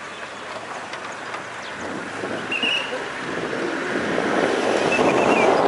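Military convoy vehicles driving on a dirt road, engine and tyre noise growing steadily louder, with wind buffeting the microphone. A couple of short high chirps sound about two and a half seconds in and near the end.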